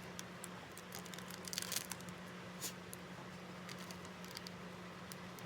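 Trading card pack wrapper being handled and opened by hand: scattered small crinkles and clicks, with a louder crinkling tear about a second and a half in.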